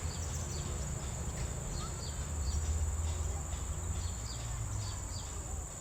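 Blue-crowned hanging parrot (serindit) calling: short, thin, high chirps repeated about twice a second, over a steady high whine and a low rumble.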